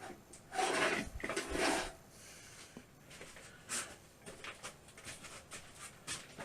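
Handling noise: a sliding scrape lasting over a second, starting about half a second in, then scattered light clicks and knocks.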